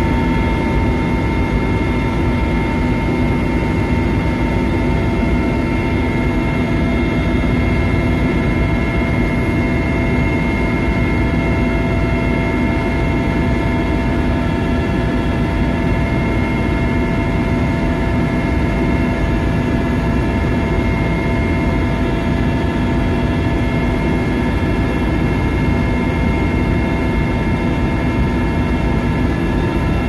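Helicopter in cruising flight heard from inside the cabin: a loud steady drone of engine and rotor, with several constant whining tones above it.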